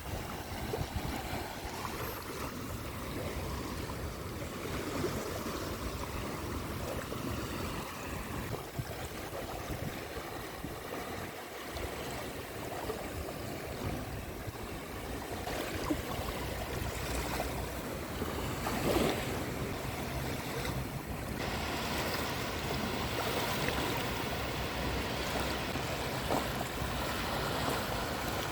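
Caspian Sea surf: waves washing steadily onto the shore, the wash swelling and easing in level.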